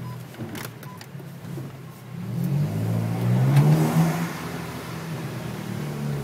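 Car engine and exhaust heard from inside the cabin, running low and steady, then accelerating about two seconds in: the engine note rises and grows loud, peaks around four seconds in, and eases back off.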